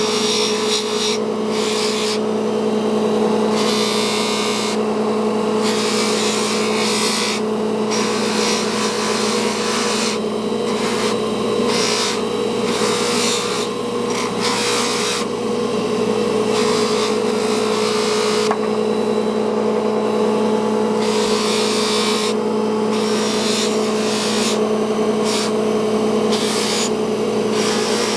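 Electric polishing machine running with a steady hum, and a hiss that comes and goes every second or so as a small steel piece is pressed against it and lifted off.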